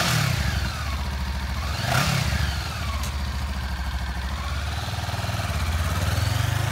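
2015 Honda CB500F's parallel-twin engine blipped twice, once right at the start and again about two seconds in, each rev rising and falling quickly, then running at a steady idle that builds a little louder near the end.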